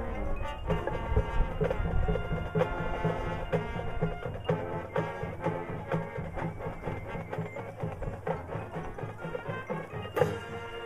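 Marching band playing, with drums keeping a steady beat under sustained pitched instruments and a sharp accented hit near the end.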